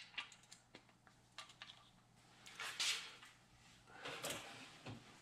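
Faint clicking and metallic rubbing from a long ratchet and clip-on torque angle gauge as an LS3 main bearing cap bolt is turned through its 80-degree torque-to-angle pass. There are two louder stretches of it, about three and four seconds in.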